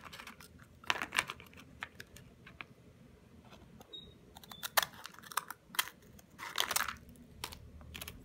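Scattered sharp clicks and taps of graham crackers being handled and laid into a plastic container, with scissors cutting through a cracker partway through.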